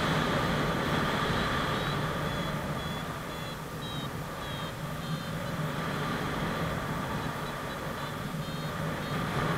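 Wind rushing over the microphone of a paraglider in flight, with short high beeps from a flight variometer signalling lift, in a couple of clusters, some sliding in pitch.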